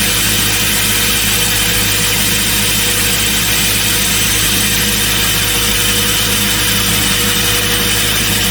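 Excavator-mounted hydraulic rock core drill rig running steadily, the excavator's engine and hydraulics driving the drill with no change in pitch or level.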